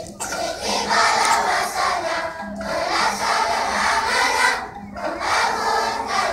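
A large group of children's voices chanting together in phrases, with short breaks about two and a half and five seconds in.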